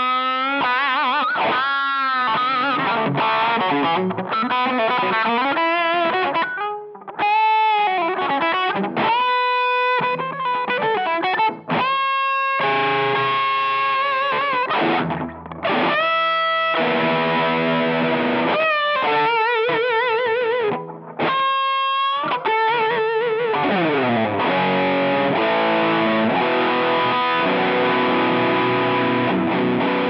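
Electric guitar played through a Behringer UM100 Ultra Metal distortion pedal with a heavily distorted metal tone. It plays lead lines of fast runs and held notes with bends and vibrato, then slides down about three-quarters of the way through into repeated rhythm riffing.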